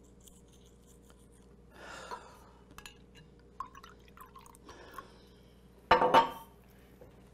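Red wine poured into a wine glass with small glass clinks, then a glass wine bottle set down on a stone countertop with a loud knock about six seconds in.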